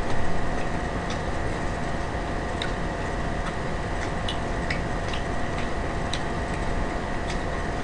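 Faint scattered clicks of chewing a chicken burger, over a steady background hum and hiss.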